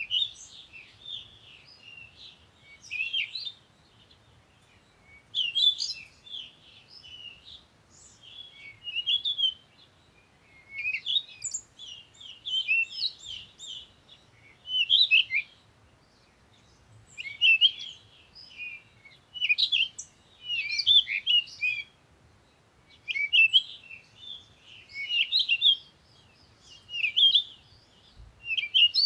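Small birds chirping and twittering in short high-pitched bursts, one every two to three seconds.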